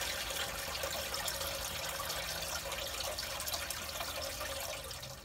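Water steadily draining out of a closed-cooled Volvo marine engine's raw-water side through its drain after the plunger is pushed down, emptying it for winter; a continuous trickling hiss.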